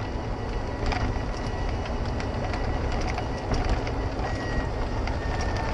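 Golf cart driving along: steady running and rolling noise with a faint high whine through it, and a click about a second in.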